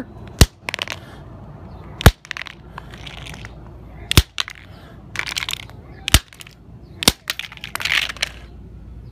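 A hammer striking a dead LiPo battery pack on pavement: five sharp blows, about two seconds apart for the first four, with softer noise between them. The pack has been fully discharged in a salt-water bath, so it takes the blows without catching fire.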